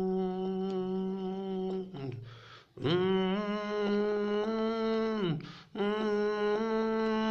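A man humming a slow melody in long held notes, with a short breath between phrases about two seconds in and again past five seconds; the second note slides up into place and falls away at its end.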